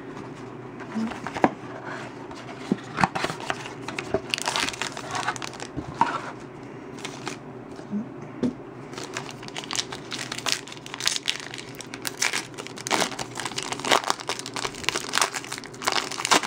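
Plastic wrapping on a sealed box of trading cards crinkling and tearing as it is opened by hand, in a long run of irregular sharp crackles.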